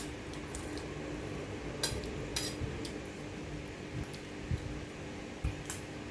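Spoon or fork clinking against a plate a few times while eating, with scattered short clicks over a steady low hum.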